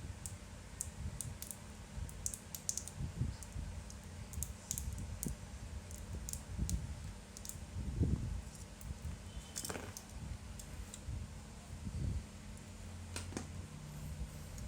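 Small irregular clicks and taps of a pry tool working at a Google Pixel 3's glued-in battery, over low bumps of the phone being handled on the bench.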